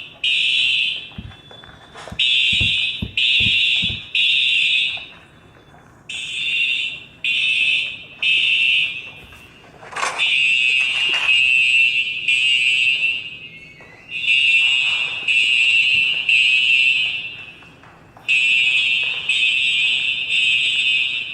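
Fire alarm sounding: a high-pitched beep repeated in groups of three with a short pause between groups, the temporal-three evacuation pattern.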